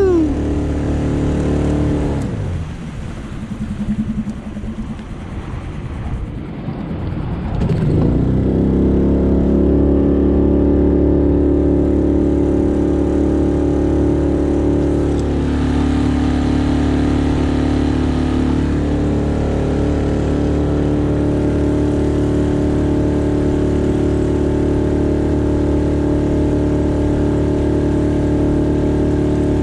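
Small motorboat's engine running under way. About two seconds in it eases back and goes quieter, then it picks up again near eight seconds and runs steadily, with a brief dip in pitch around the middle.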